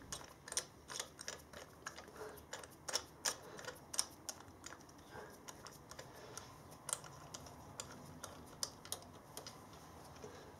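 Irregular metallic clicks and taps from a T-handle spark plug wrench being turned by hand as a spark plug is screwed back into the cylinder head and tightened. The clicks come thickly at first and thin out later on.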